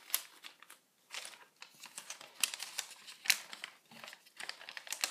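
Sheet of A4 paper being folded and handled, crinkling and rustling in quick irregular crackles, with a short pause about a second in.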